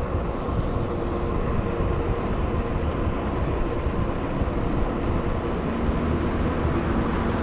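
Wind rushing over a GoPro microphone while a mountain bike rolls along a paved road: a steady noise, heaviest in the low end, with no sudden events.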